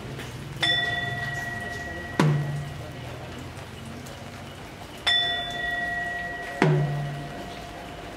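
Buddhist ritual percussion: a metal bell is struck twice, about four and a half seconds apart, and each time rings clear for about a second and a half. Each ring is cut off by a deeper, shorter stroke. A faint low hum lies underneath.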